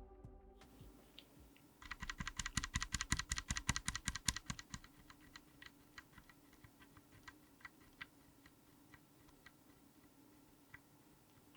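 Mechanical keyboard with Gateron G Pro Yellow linear switches on an FR4 plate being typed on: a fast run of keystrokes about two seconds in, thinning out to scattered single key presses toward the end.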